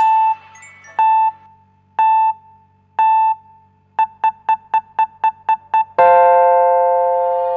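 Electronic keyboard-like tones: one note struck once a second, then quickening to about four a second, then a long chord about six seconds in that fades slowly.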